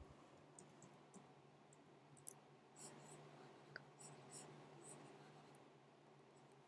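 Near silence with faint, irregular scratches and a few light clicks of a pen stylus on a drawing tablet, over a low steady hum.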